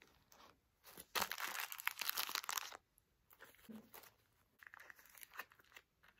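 Plastic candy wrapper crinkling as it is handled and squeezed into a small pouch: a dense burst of crackling about a second in, then softer crinkles near the end.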